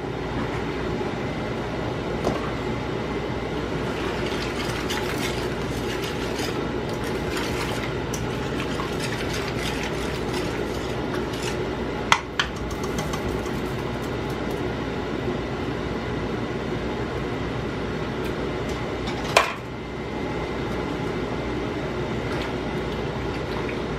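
Utensil clinks and scrapes in a pot of beef stroganoff gravy heating on the stove, over a steady background hum. Two sharper clicks stand out, one about halfway through and one later on.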